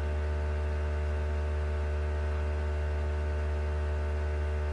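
Steady low hum with a faint hiss, unchanging throughout, with no other event.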